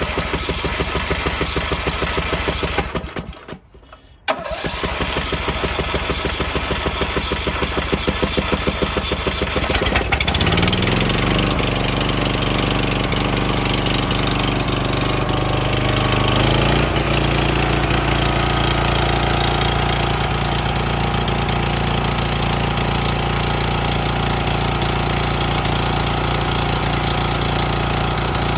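Briggs & Stratton single-cylinder engine of a Troy-Bilt 7550-watt dual-fuel generator, choked and fed propane, cranked by its electric starter. It cranks for about three seconds, stops for a moment, cranks again, and catches about ten seconds in. It rises in pitch as it comes up to speed, steps up once more a few seconds later, and then runs steadily: the starter and engine work again now that the bad electrical connection is fixed.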